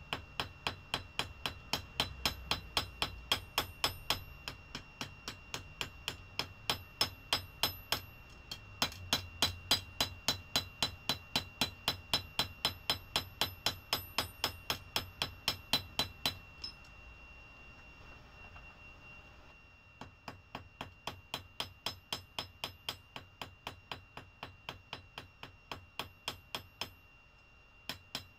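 Hand hammer striking hot leaf-spring steel on an anvil, a steady run of ringing blows about three a second. The blows pause for a few seconds past the middle, then resume more lightly.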